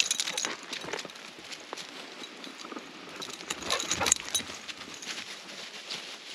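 Dog on a leash walking over leaf litter: irregular light clinks of its collar tags and metal leash clip mixed with footsteps rustling on dry leaves, busier about four seconds in.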